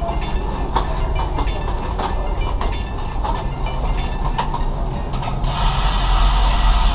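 Shimano 105 11-speed bicycle drivetrain being turned over during derailleur tuning: the chain runs over the cogs with irregular ticks and clicks. About five and a half seconds in, a louder steady rush starts.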